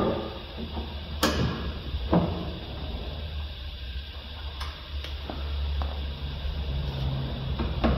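Scattered knocks and clicks of a car's rear door and hand tools being handled, over a low steady hum.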